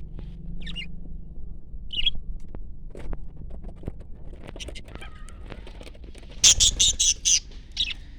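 Pet Australian parrots making a few short chirps, then a quick run of loud, harsh squawks about two-thirds of the way in.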